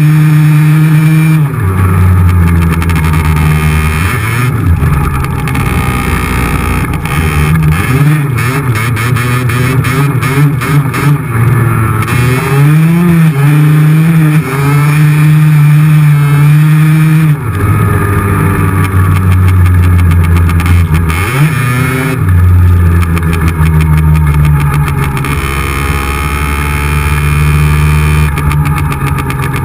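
50cc two-stroke motorcycle engine running under load, revving up and dropping back again and again with gear changes every few seconds.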